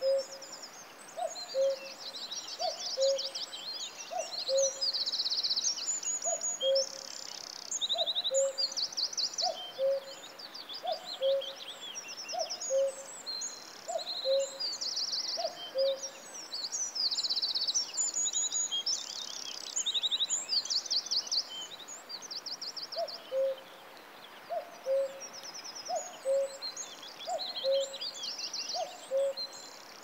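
Birdsong chorus: several small birds singing high trills and quick chirps. Under them a low two-note hoot repeats over and over, a little faster than once a second, stopping for several seconds after the middle and then resuming.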